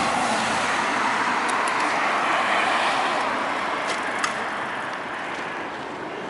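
Road traffic: a passing vehicle's tyre and engine noise on the road, slowly fading, with a sharp click about four seconds in.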